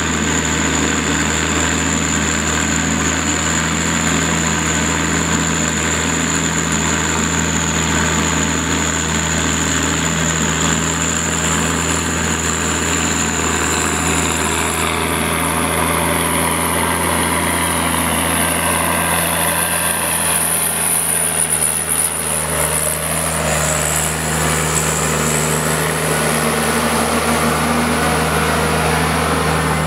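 John Deere 1110D forwarder's diesel engine running steadily, with a thin high whine that steps up in pitch about halfway through.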